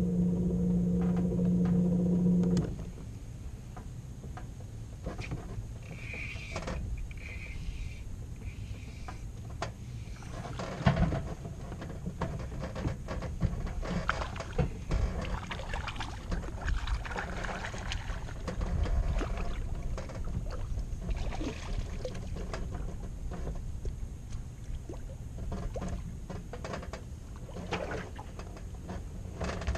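Small fishing boat on the water: a low rumble of wind and water with scattered knocks and clicks. A loud steady hum opens and cuts off suddenly about two and a half seconds in, and a few short high beeps come about six seconds in.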